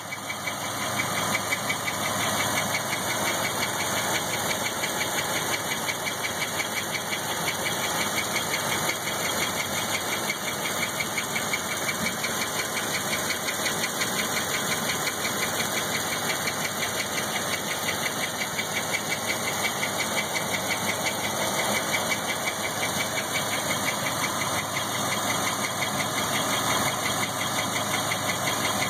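1997 LT1 5.7-litre V8 running steadily with a fast, regular belt-like chirping noise, which the owner places at the back of the driver's-side cylinder head, where no belts run. Its cause is unknown.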